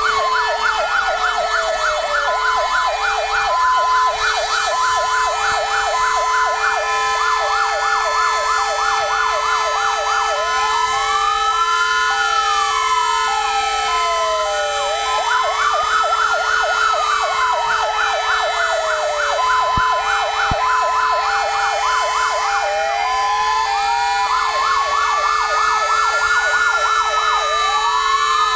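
Fire engine sirens sounding together in several patterns at once: a slow wail rising and falling every few seconds, a fast yelp, and a two-tone hi-lo, over a steady tone. This is the commemorative sounding of sirens at 'Godzina W' in tribute to the Warsaw Uprising insurgents.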